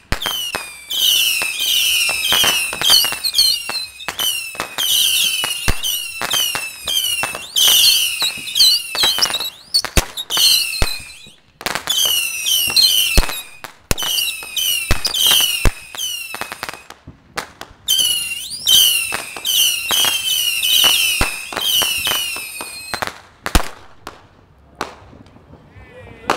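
A Saturn missile battery firing in rapid succession: many overlapping shrill whistles, each falling in pitch, broken by sharp cracks as the small rockets pop. The whistling comes in runs with short gaps and dies away about 23 seconds in, leaving a few last pops.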